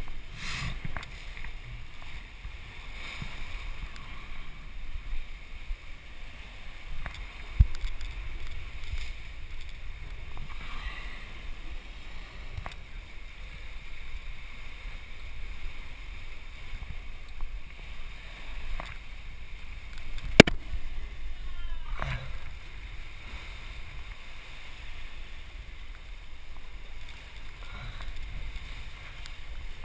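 Sea washing below the cliff and a low rumble of wind on a head-mounted camera's microphone, with a few sharp knocks against the rock. The loudest knock comes about twenty seconds in.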